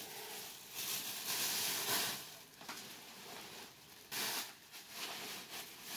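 Rustling of a shopping bag and its contents being handled, in irregular bursts, loudest about one to two seconds in, with shorter bursts near the end.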